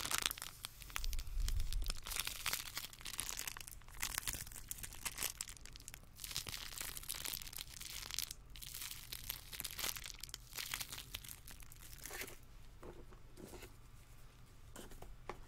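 Small zip-lock plastic bag crinkling and rustling as it is handled close to the microphone. The crackles come thick at first, then thin out and grow quieter in the second half.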